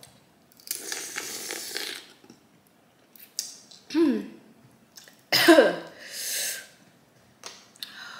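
Close-miked mouth sounds of eating saucy boiled crawfish: several noisy slurps and sucks, and two short squeaky sounds that fall in pitch, the second one, past the middle, the loudest.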